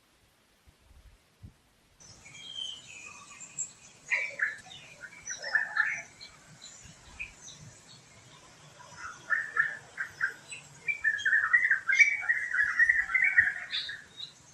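Wild birds chirping and calling in a series of short notes. The sound begins abruptly about two seconds in and ends in a loud, rapid run of chattering notes near the end.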